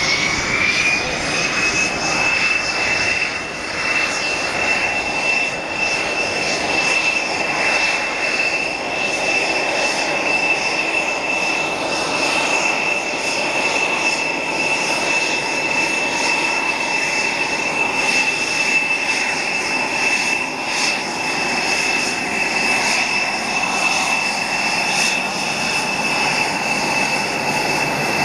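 Saab Gripen fighter's Volvo RM12 turbofan running at taxi power: a loud, steady high whine over a rushing jet noise. The whine rises in pitch at the start, then holds level.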